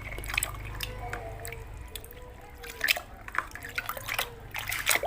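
Water dripping and splashing lightly as a muddy plastic toy car is dipped and washed in a basin, with scattered small drips and clicks.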